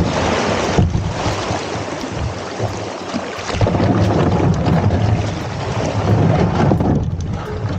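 Loud wind buffeting the microphone, with water splashing and lapping. The rumble swells and eases, dipping briefly about a second in and again near the end.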